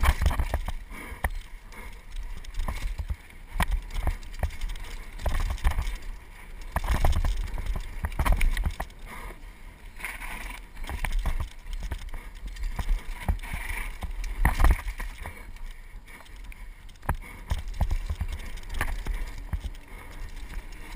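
Mountain bike descending a rough dirt trail at speed: a dense run of sharp knocks and rattles from the bike jolting over bumps, over a steady low rumble of wind buffeting the camera microphone.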